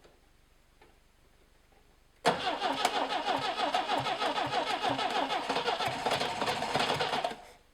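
BMW 2002's M10 four-cylinder engine turned over on the starter motor for about five seconds with an even, pulsing rhythm, beginning about two seconds in and then stopping without the engine catching. This is a start attempt on newly fitted Dellorto DHLA40 carburettors, and it comes close to firing.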